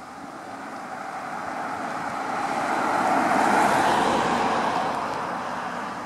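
A car driving past: tyre and engine noise swells to its loudest about four seconds in, then fades away.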